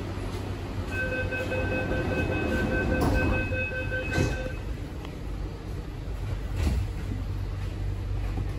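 Inside a Hong Kong MTR Tuen Ma line C-train: the door-closing warning beeps rapidly for about three and a half seconds, then a knock as the doors shut, over the train's steady low hum.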